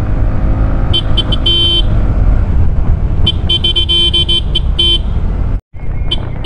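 A vehicle horn sounding in short, repeated toots, in three clusters: about a second in, from about three to five seconds, and near the end. Under it, the steady wind and road rumble of a TVS Ntorq scooter being ridden in traffic. The sound cuts out for an instant shortly before the last cluster.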